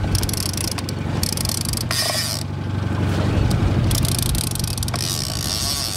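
Sportfishing boat's engine humming steadily. Wind and water hiss over it in gusts that cut in and out.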